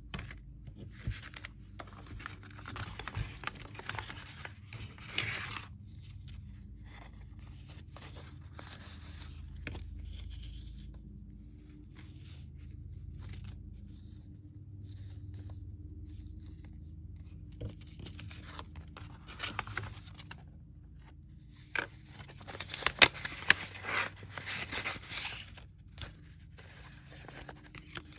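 Hands handling paper: collage cards, postage stamps and cut-out paper pieces rustling and scraping against each other in irregular bursts, with a louder flurry of rustling late on. A faint steady low hum runs underneath.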